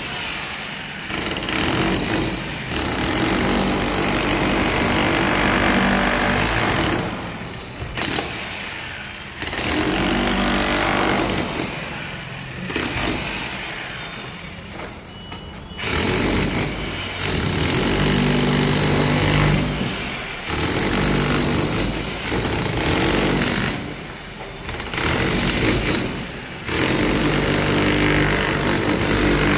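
Ralli Wolf RW-5HE 1200 W electric demolition hammer breaking concrete, running in stretches of a few seconds with short pauses between them.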